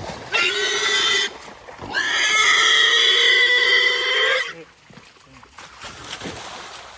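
Trapped wild hogs squealing: two loud, shrill squeals, the first about a second long, the second longer and held for about two and a half seconds.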